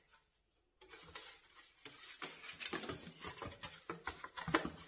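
Packaging rustling and crinkling as items are lifted out of a cardboard delivery box: a busy run of small crackles and handling knocks that starts about a second in, after a moment of dead silence.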